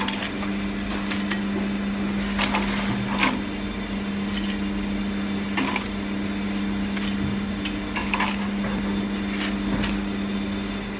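Metal tongs clicking and tapping against a fryer basket and a ceramic plate as deep-fried rolls are lifted out and plated, about ten short knocks spread irregularly. A steady low hum of kitchen equipment runs underneath.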